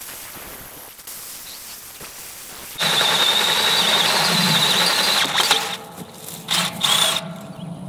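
Cordless DeWalt drill driving a 1/2-inch bit into a rusty steel pipe. About three seconds in the bit bites hard and squeals steadily for a couple of seconds, then gives a few shorter grinding squeals.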